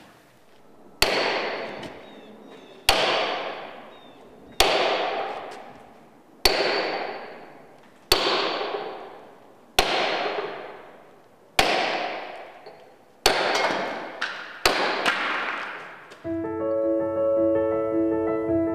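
A hammer strikes the steel wedge set between two half rounds (plug and feathers) in drilled holes, to split a granite block. There are about nine blows, roughly one every two seconds, and each rings out and fades before the next. Piano music comes in near the end.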